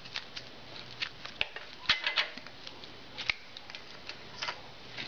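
Handling noises from latex-gloved hands working at the top of a motorcycle front fork tube and its top cap: irregular light clicks and rustles, with two sharper clicks about two and three seconds in.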